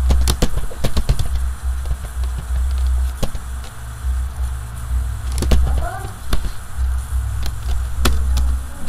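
Computer keyboard keys clicking in irregular runs as code is typed, over a loud low hum.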